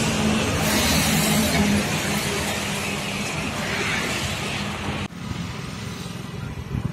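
A motor vehicle's engine running close by, with a steady low hum under loud, dense road and wind noise. About five seconds in, it cuts off abruptly to a quieter roadside background.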